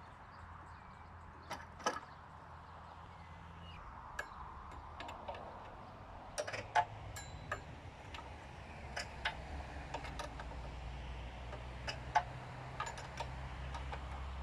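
Irregular light clicks and taps of metal parts being handled on a chainsaw fitted to a chainsaw mill, with the engine off, over a faint low hum.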